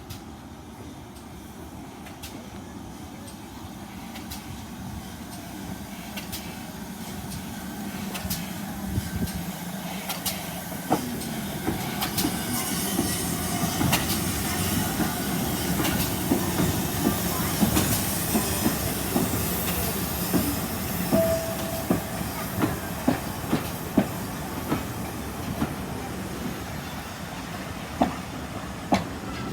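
Train running on the rails, a steady rumble and hiss that builds over the first half, with the wheels clicking over rail joints every half second to a second. A brief squeal comes in about two-thirds of the way through.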